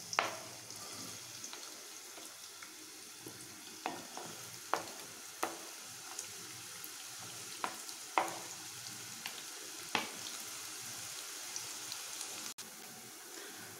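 Diced onions frying in hot oil in a stainless steel pot: a steady sizzle, broken by about nine sharp knocks as a wooden spatula scrapes the onions off a plate into the pot.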